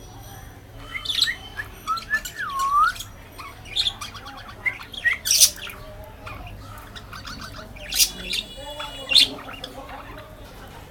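Budgerigar chatter: bursts of short, harsh squawks and chirps, with a looping warbled whistle a couple of seconds in.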